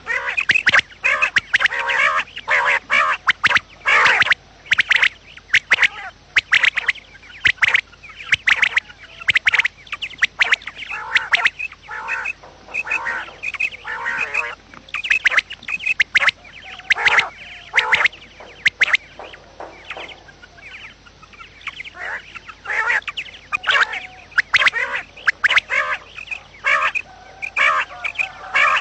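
Quail calling over and over, a dense run of short, sharp calls with hardly a pause.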